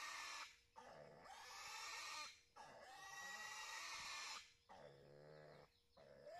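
Piglet squealing in a string of long, high-pitched screams, each lasting one and a half to two seconds with short breaks for breath. About five seconds in comes a lower, rougher cry. These are the distress screams of a piglet held down for castration.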